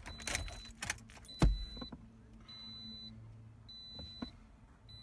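The Toyota Corolla's dashboard warning chime beeps over and over, one high half-second beep about every 1.2 seconds, as the ignition is switched on. Keys rattle in the first second, and a loud thump comes about one and a half seconds in.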